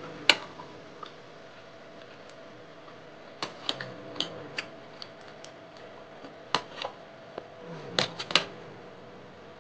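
Metal spoon and fork clinking against a ceramic plate while eating: scattered sharp clicks, the loudest just after the start and a quick cluster of three near the end.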